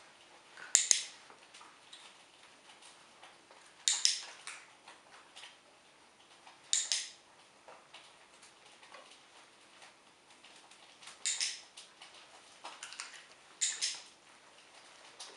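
Dog-training clicker clicking about six times, a few seconds apart, each a sharp double click-clack, marking the dog's correct heel position. Softer ticks and steps in between.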